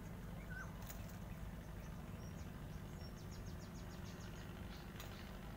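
Outdoor ambience: a steady low rumble with a few short high bird-like chirps, and a rapid high trill of about nine ticks a second lasting about a second, starting about three seconds in.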